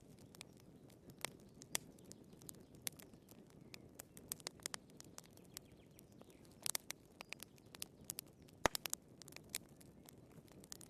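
Wood fire burning in a fireplace: sharp, irregular crackles and pops over a low, steady rush of flame, with a cluster of crackles about seven seconds in and the loudest pop shortly after.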